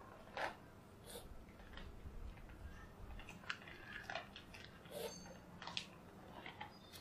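Cats eating dry kibble: irregular crunches and clicks as the pellets are chewed.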